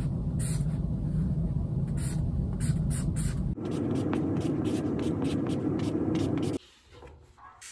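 Felt-tip marker writing on poster board: a steady scratchy rubbing of pen strokes. About three and a half seconds in, the same writing sound turns higher and quicker, played back at double speed. It cuts off abruptly near the end.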